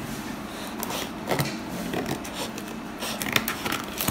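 Scattered light clicks and scrapes of a laptop box and its packaging being handled during unboxing.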